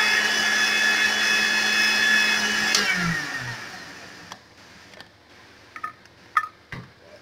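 Electric blender running steadily, blending ripe plantain and water into a smooth purée. About three seconds in it is switched off with a click and the motor winds down. Then a few light clicks and knocks as the lid is taken off the jug.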